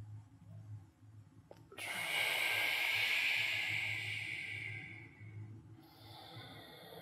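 A man's long, forceful exhalation, starting suddenly about two seconds in and fading away over some three seconds, during a controlled floor exercise. A second, quieter breath follows near the end.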